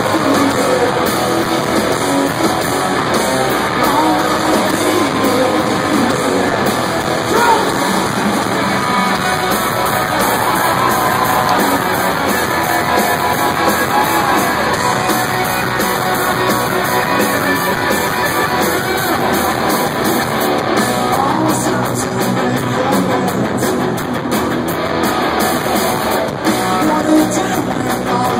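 Rock band playing live, loud and steady: electric guitars and drums with a singing voice, recorded on a phone from the crowd.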